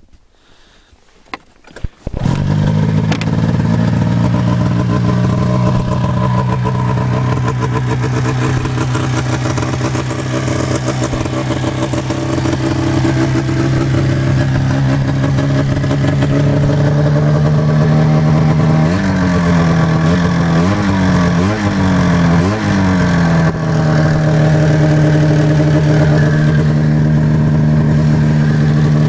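1988 Arctic Cat Cougar 500 snowmobile's two-stroke engine starting about two seconds in and then idling steadily. A little past the middle the throttle is blipped four times in quick succession, and the engine then settles back to a steady idle.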